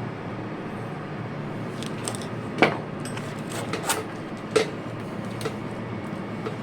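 Steel wire rope strands clinking sharply against metal a few times while being worked into a splice, over a steady low hum.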